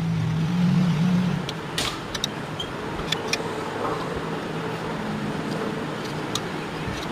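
Welding machine humming steadily over a low hiss, with a few sharp clicks; the hum is strongest in the first second or so.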